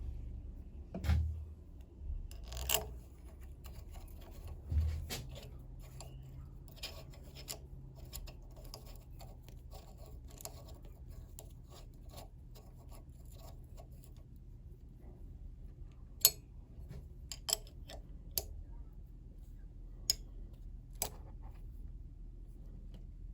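Handling noise from a workbench: a few dull thumps in the first five seconds, light rubbing and scraping, then several sharp metallic-sounding clicks and taps spread over the latter half.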